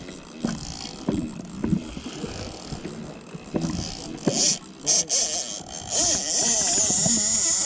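Noise on a fishing boat at sea: a steady hiss that grows much louder about six seconds in, with a few knocks.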